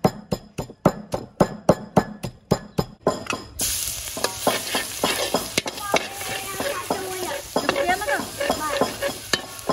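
A wooden pestle pounds chilli and salt in a wooden mortar in steady knocks, about two and a half a second. About three and a half seconds in, this gives way to minced garlic sizzling loudly in hot oil in a steel wok, stirred and scraped with a metal spatula.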